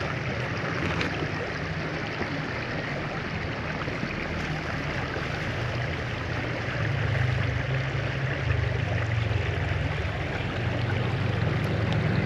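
Shallow rocky creek flowing steadily over stones, a continuous rushing wash. A low rumble sits underneath and grows louder in the second half.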